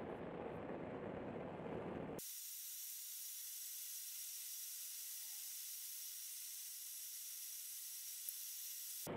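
A steady low rumbling noise that cuts off abruptly about two seconds in, giving way to a steady high hiss that stops just as abruptly near the end.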